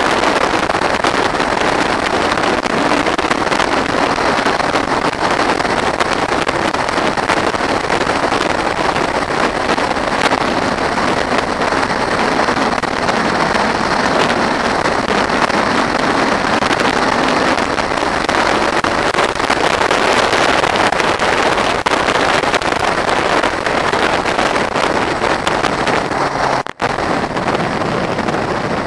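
BMW motorcycle riding at speed: a steady rush of wind on the bike-mounted microphone over the engine's running noise. The sound cuts out for a split second near the end.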